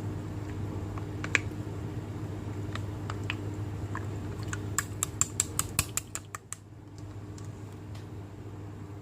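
Slime being worked by hand, giving scattered sharp sticky clicks and pops, with a quick run of about ten clicks a little after the middle. A low steady hum runs underneath.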